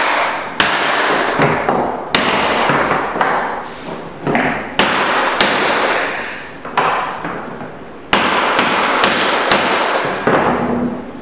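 Claw hammer striking a wooden tapping block to knock oak tongue-and-groove flooring strips tight into place: about a dozen sharp, irregularly spaced wooden knocks, each followed by a fading ring.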